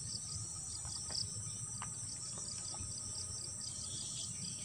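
A chorus of insects in the undergrowth: a steady high-pitched drone with quick chirps repeating at an even pace. A few faint scrapes of a spoon on a metal wok come through as the noodles are tipped out.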